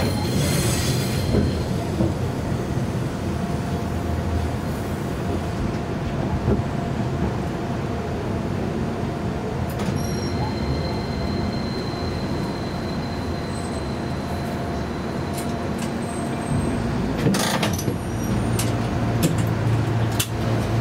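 Chikuho Electric Railway tram heard from inside the car as it slows along a station platform and stops: a steady rumble of wheels and running gear. A thin high whine runs through the middle, and a few sharp clicks come near the end as it halts, followed by a low steady hum.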